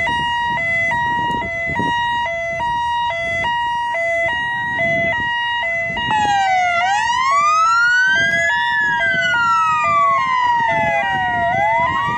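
Two emergency sirens: a two-tone hi-lo siren alternating steadily between two pitches, joined about six seconds in by a second siren wailing slowly up and down.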